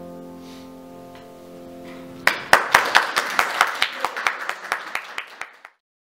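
The last chord of a grand piano dying away, then applause starting a little over two seconds in, with sharp distinct claps that cut off abruptly near the end.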